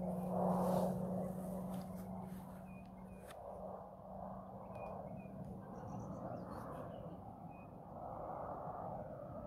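Distant aircraft droning as a steady low hum that fades away over the first few seconds, under a faint rushing noise, with a few short, faint bird chirps.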